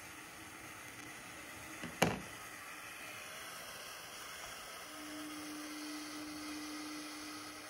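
Homemade single-MOSFET Tesla coil running on 18 volts, the spark at its nail breakout point giving a steady hiss. A sharp knock comes about two seconds in, and a steady low hum joins from about five seconds in.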